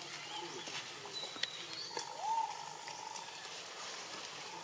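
Faint animal calls over quiet outdoor background: a short high chirp a little after a second in, then a held call, rising at its start, for about a second from around two seconds in, with scattered soft clicks.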